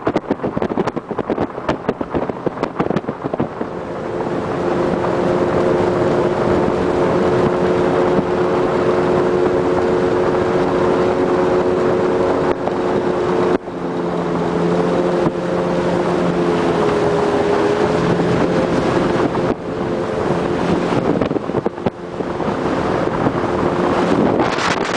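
Motorboat engine running steadily under way, with wind buffeting the microphone. The engine note holds steady, shifts in pitch a little about midway, and dips briefly twice.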